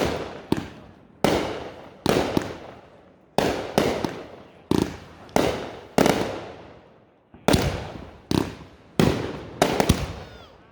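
Fireworks going off in quick succession: about a dozen sharp bangs, roughly one a second, each trailing off in a rumbling echo.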